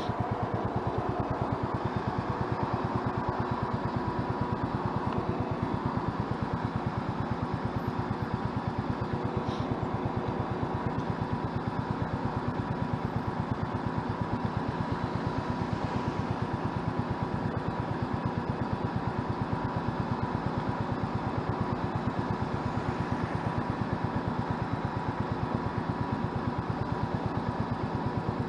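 Motorcycle engine idling steadily at a standstill, an even run of rapid exhaust pulses with no revving.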